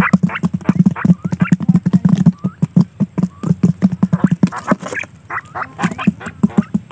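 Quail pecking seed off a sheet of cardboard: rapid, irregular taps, with short chirping calls mixed in.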